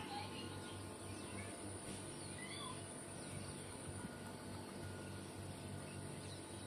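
Faint outdoor background noise: a steady low hum with a few faint high chirps, one near the start and a couple about two and a half seconds in.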